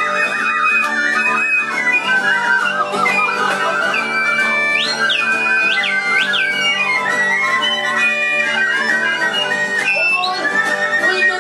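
Live folk-style instrumental music: recorder and other small wind instruments play trilling melody lines over acoustic guitar. Around the middle, a high whistled note leaps up and drops back three times.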